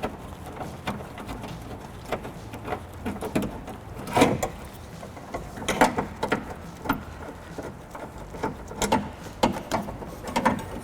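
Hand ratchet with a 10mm socket backing out bolts inside a car door, clicking in short runs, with a few louder metal knocks.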